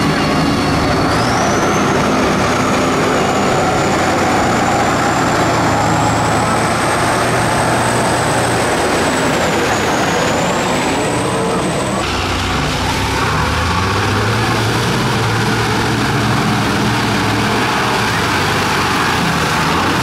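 Heavy tractor diesel engines working hard through deep mud: first a Kirovets articulated tractor, with a high whistle that climbs in pitch through the first half. About twelve seconds in, the sound cuts sharply to a Valtra tractor's engine pulling through the mud.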